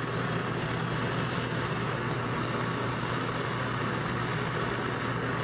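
Flame of a Volcano bead-making burner running steadily: an even rushing noise with a constant low hum underneath.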